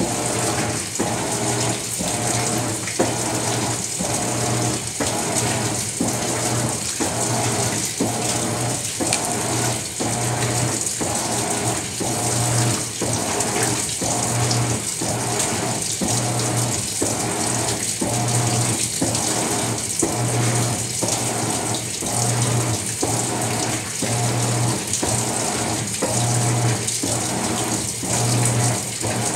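Maytag MVWX655DW1 top-load washer agitating a load of dish towels in deep water, heard from inside the drum: water sloshing and churning, with a regular surge about twice a second and a low motor hum that swells and fades every second or so.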